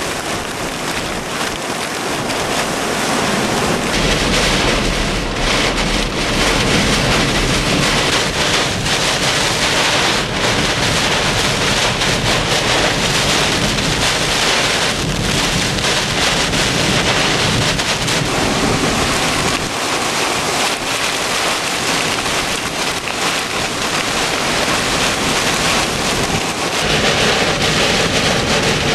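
Hurricane eyewall winds and heavy rain beating on a vehicle, heard from inside it: a steady, loud rush of wind and rain that grows a little stronger a few seconds in.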